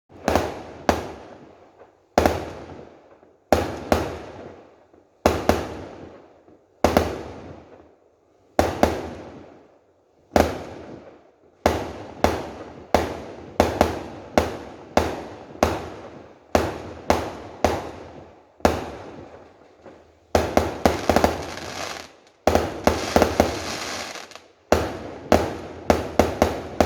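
Fireworks going off in a long series of sharp bangs, each echoing away over a second or so. The bangs come roughly every second and a half at first, then faster, with a dense run of rapid crackling bangs near the end.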